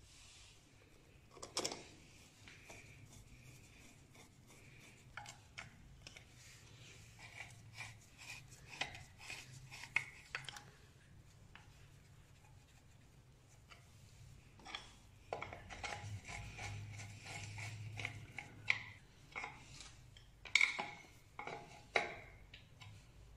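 Faint, scattered metallic clicks, taps and scraping of a screwdriver and small screws as the ignition stator plate of a Peugeot 103 moped is fastened in place.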